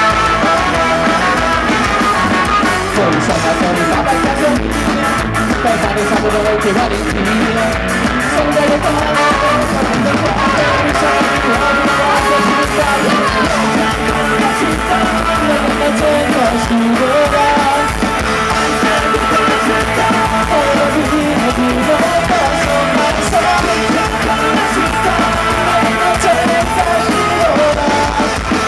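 Ska-punk band playing live: electric guitars, bass and drums with a trumpet carrying a melody line over a fast, driving beat.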